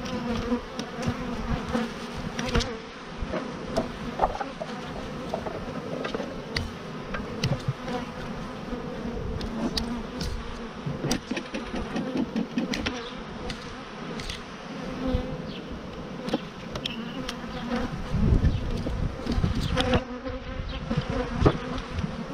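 Honeybees buzzing in a steady, dense hum around an opened hive, with scattered sharp clicks and knocks of wooden hive frames and boxes being handled, the heaviest thuds near the end.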